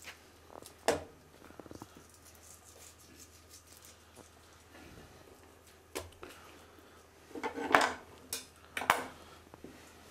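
Kitchen handling sounds on a work counter: a sharp knock about a second in, then after a quiet stretch a short run of clattering and two more knocks of dishes and utensils.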